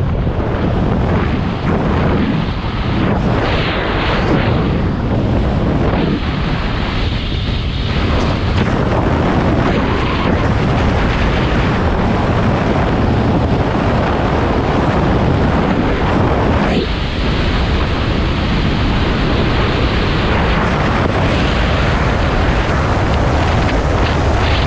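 Loud, steady wind rush on the camera microphone of a motorcycle riding at road speed, with the bike's running and road noise mixed in beneath; the level swells and dips a little now and then.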